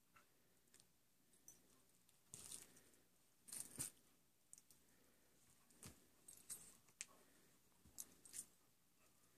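Faint scuffling of two dogs play-wrestling, with a few short metallic jingles of collar tags; the loudest comes a little under four seconds in.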